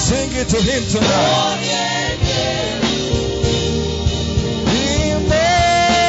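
Live gospel praise music: a male worship leader singing with a choir and band backing, drums keeping time. A long held sung note comes in near the end.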